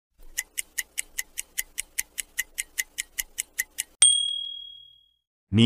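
Clock-ticking sound effect, about five quick ticks a second for nearly four seconds, then a single bright ding that rings out for about a second: a quiz countdown timer marking the end of the thinking time.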